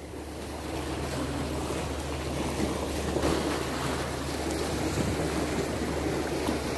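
Sea waves washing on the shore with wind buffeting the microphone, and a faint steady low hum for a few seconds near the start.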